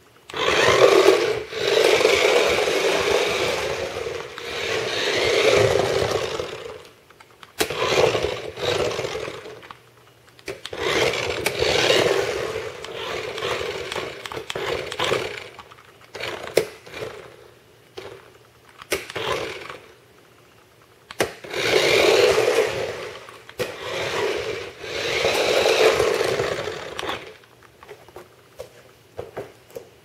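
Small electric drive motor and plastic gearbox of a toy remote-control car whirring in bursts of a few seconds as it drives, with shorter stop-start blips and gaps between them.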